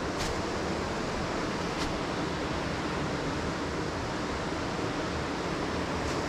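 Youghiogheny River rapids rushing in a steady, even roar of white water, with two faint clicks in the first two seconds.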